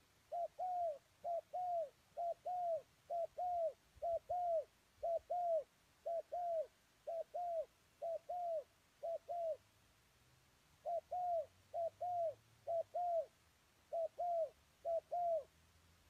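Spotted dove cooing: short two-note coos repeated about once a second, with a pause of about a second past the middle.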